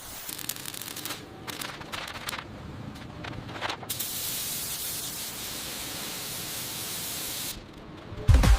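Crackly scraping and rubbing noise, then a steady hiss that cuts off suddenly about three quarters of the way through. A heavy bass hit lands near the end.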